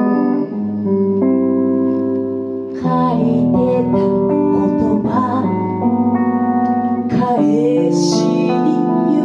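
Guitar playing a slow instrumental passage of held chords, with the notes changing about once a second.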